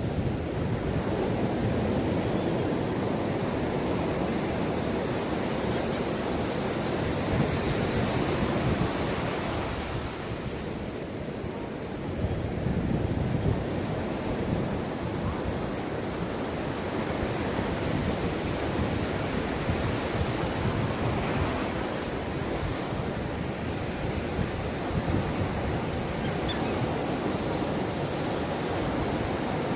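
Ocean surf washing onto a beach in a continuous rush, easing for a couple of seconds about ten seconds in, then building again as the next wave comes in.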